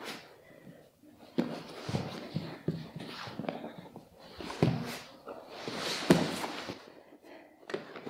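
Two people grappling on training mats: heavy breathing and grunting, with bodies and bare feet scuffing and bumping on the mat in uneven bursts.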